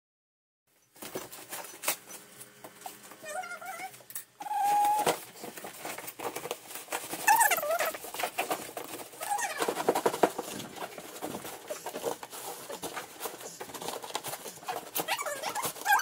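Cardboard packaging being torn open and foam and plastic wrapping rustling and crinkling as a boxed folding steel bed is unpacked, with several short, high, wavering whines over it.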